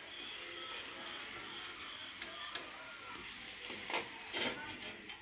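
Hot oil sizzling faintly in a wok as potato fries deep-fry, a steady hiss. A few short knocks of a metal slotted spoon against the wok come near the end.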